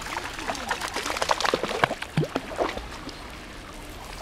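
Lake water sloshing and splashing, with gurgling drips, as a person wades and a dog paddles alongside. It is busiest in the middle and settles to a quieter lapping near the end.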